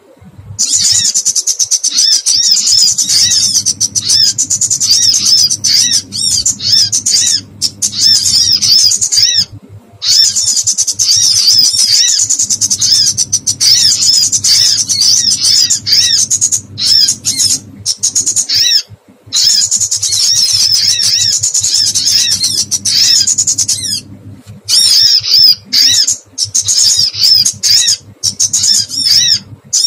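Lure recording of small birds' distress calls, the 'pinched' cries of a trapped bird: rapid, high, scratchy chirps in dense runs, broken every few seconds by brief abrupt gaps, over a low steady hum.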